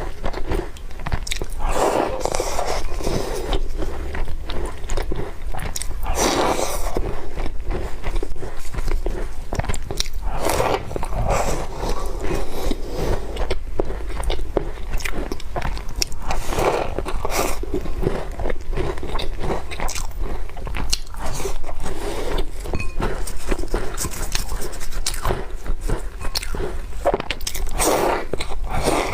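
Close-up eating of crumbly walnut cookies: steady chewing and crunching, with louder bites every few seconds.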